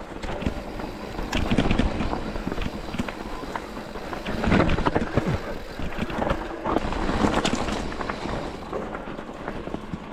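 Mountain bike tyres rolling fast over a loose, rocky trail, with irregular clatter and knocks from stones and the bike's frame and wind buffeting the microphone.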